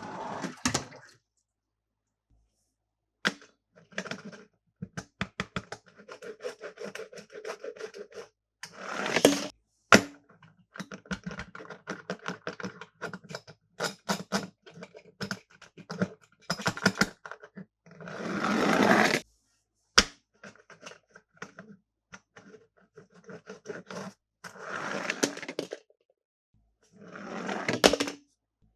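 Plastic toy cars and packaging being handled: runs of quick clicks and rattling, several short swishing rushes and two sharp snaps.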